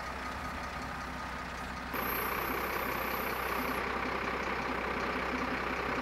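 Lorry engine running steadily to power its loader crane. About two seconds in, the sound abruptly becomes louder and harsher, then holds steady.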